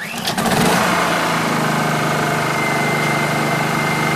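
Honda EU2000i inverter generator being pull-started: a short rising whirr, then the engine catches about half a second in and runs steadily.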